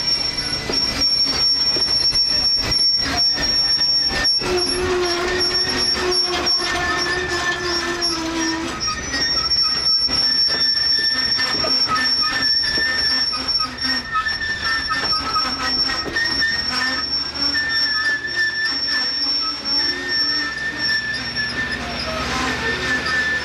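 Steel wheels of a passenger train squealing on the rails as the cars roll by: a high steady squeal with other squealing tones wavering in and out, over a low rumble and repeated knocks from the running gear.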